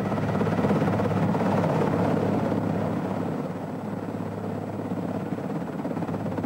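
Bell 206 JetRanger helicopter hovering in low to land, its two-bladed main rotor chopping rapidly over the turbine. The sound swells in the first second or so and then slowly eases.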